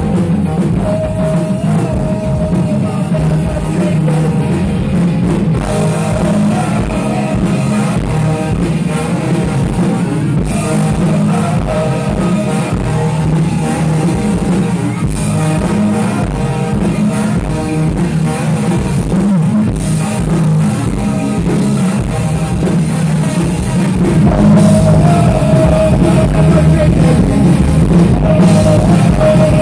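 Live ska punk band playing: trumpet, trombone and saxophone over electric guitar and drums. The music gets louder about 24 seconds in.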